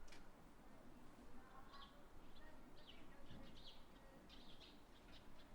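Faint outdoor park ambience with small birds chirping in short high calls, several a second from about two seconds in. A single sharp click comes right at the start.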